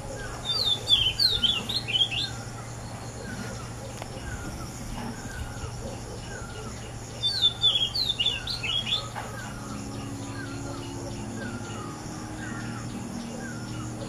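Oriental magpie-robin singing two short phrases of quick, sweet whistled notes, one just after the start and another about seven seconds in. A softer call repeats steadily throughout, over a low steady hum.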